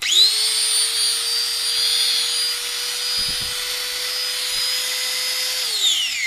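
Electric angle grinder switched on: it spins up quickly, runs steadily with a high whine, then is switched off and winds down near the end. It is a test run after the grinder's bearing was replaced and its carbon brushes refitted.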